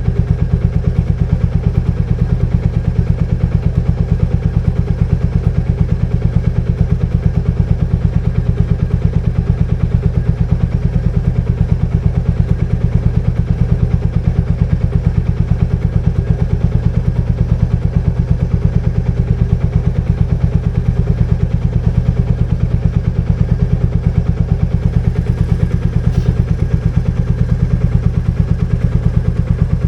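Royal Enfield Meteor 350's single-cylinder engine idling steadily with an even, rapid thump.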